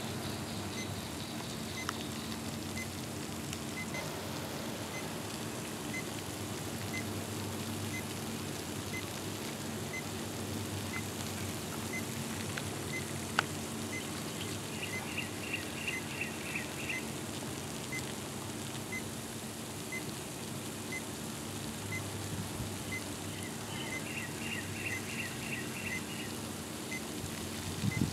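Salt-water brine fizzing and bubbling around the electrodes of a homemade 120-volt AC electrode boiler as about 1,765 watts pass through it, heating it toward the boil. A steady low hum runs underneath.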